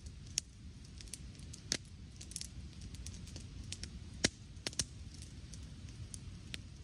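Wood campfire crackling and popping, with irregular sharp snaps, the loudest a little after four seconds in, over a low steady rumble.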